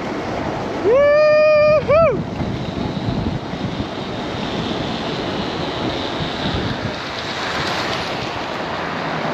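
Wind rushing over the microphone of a motorcycle coasting with its engine off. About a second in, a person gives a loud long whoop, then a short second one.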